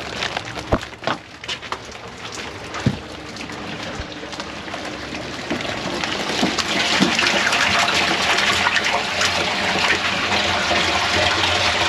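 Water gushing into a boat's livewell, building about halfway through and then running steadily. A few knocks from the plastic bait basket against the hatch in the first few seconds.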